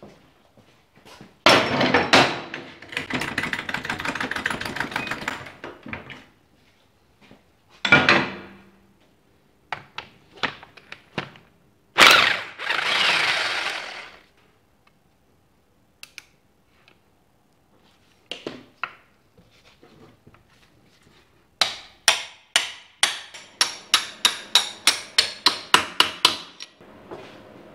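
Hand tools working the engine and swing-arm through-bolt of a Ducati 916 frame loose: a couple of longer stretches of wrench work and some metal clanks, then a run of quick hammer taps, about three a second, near the end as the bolt is driven out.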